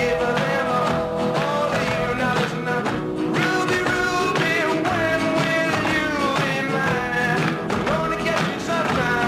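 Rock and roll song with a singer, playing as background music.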